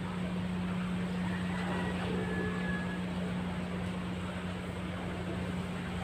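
A steady low mechanical hum under a hiss of outdoor background noise, with a faint, brief high whistle about two seconds in.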